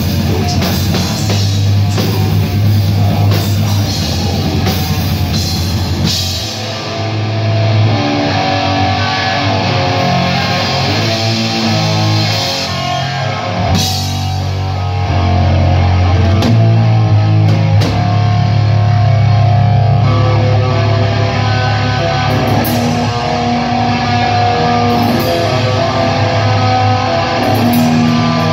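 Heavy metal band playing live: electric guitars through Marshall amplifiers over a drum kit, loud and dense throughout.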